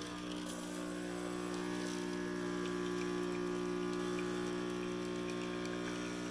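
DeLonghi Dedica EC680M espresso machine's newly replaced vibratory water pump running with a steady buzzing hum as it pushes water through the portafilter for a double shot. The new pump is working.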